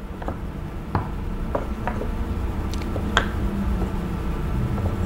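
Pieces of a wooden Giant Knob Shape Puzzle knocking and clicking against the wooden board as they are handled and fitted into their cutouts: a string of light, separate knocks.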